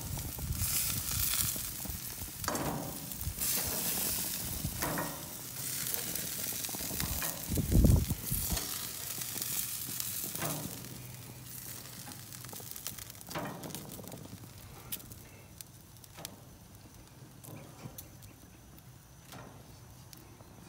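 Pork chops sizzling on a grill, with scattered sharp clicks of tongs on the metal grates as the chops are lifted off. The sizzle dies down through the second half as the grill empties. A brief low thump a little before the middle.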